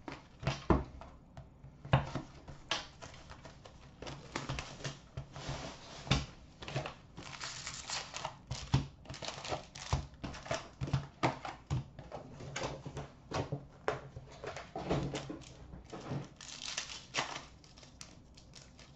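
Cardboard box of hockey card packs being opened and its foil packs handled and stacked, with many short crinkles, rustles and clicks of wrapper and card stock. Near the end a pack is handled for opening.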